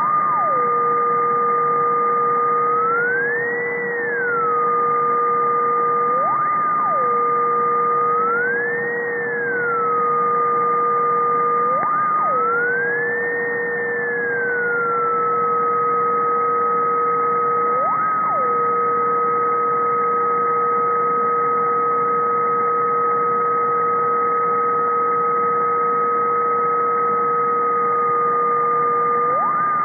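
Ultrasonic electronic noise from above 50 kHz made audible: two steady tones, one low and one higher, over a hiss. The lower tone briefly jumps up in pitch and drops back every few seconds, and the higher tone glides up and back down three times in the first half. The uploader suspects a switched-mode power supply.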